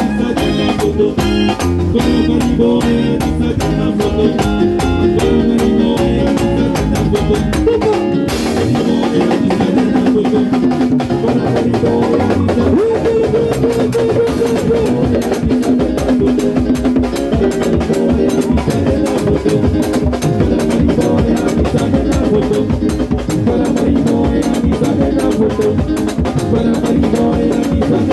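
Live band playing an instrumental dance number: drum kit and conga drum keeping a dense, steady beat with keyboard over it, and a cymbal-like crash about eight seconds in.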